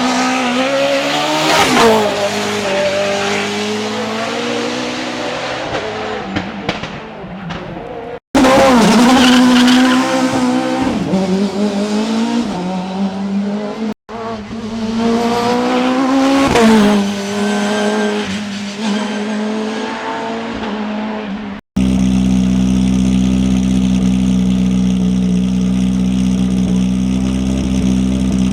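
Hill-climb race car engines revving hard and shifting up and down through the gears as the cars pass, heard in three short clips. About three-quarters of the way in, the sound switches to a single engine holding a steady note.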